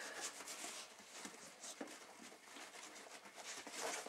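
Nylon fabric of a 5.11 Rush 72 backpack rustling and scraping as hands work at its top, with scattered small clicks.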